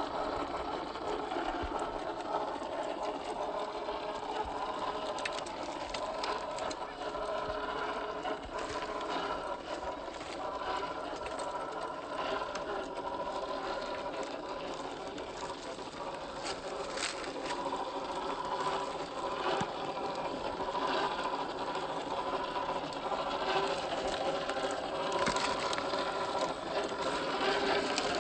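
Electric motor and gear drivetrain of a 1/10-scale RC crawler on a Boom Racing BRX01 chassis, whirring steadily as it crawls. Its pitch wavers up and down, with scattered small clicks and knocks.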